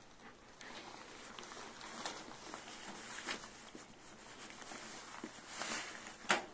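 Crumpled newspaper bedding rustling and crackling as a mother dog and her newborn puppy shift about on it, with a swell of rustling and then one sharp crackle near the end.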